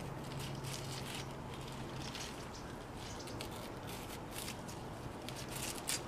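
Knife scraping and cutting the prickly leaves off wild cardoon leaf stems: a run of short, crisp rustling scrapes, with a sharper click near the end.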